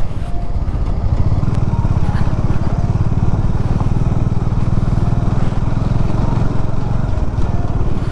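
Motorcycle engine running steadily while riding, a deep even rumble that holds at one pace.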